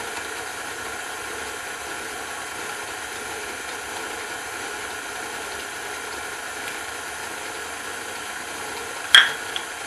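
Electric stand mixer running steadily at low speed, its motor and gears whirring as the beater works the cake batter in the steel bowl. About nine seconds in, a single sharp crack as an egg is knocked on the rim of the bowl.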